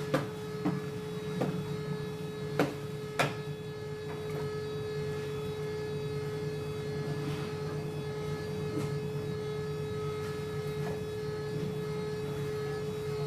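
Steady machinery hum with a constant tone over a low rumble, and a few sharp knocks in the first three seconds or so.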